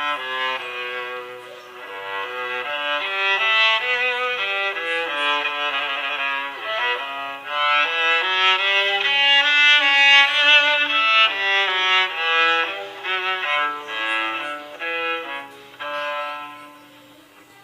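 Ringtone melody playing from a Nokia 3110 classic mobile phone: a quick tune of short, distinct notes, trailing off near the end.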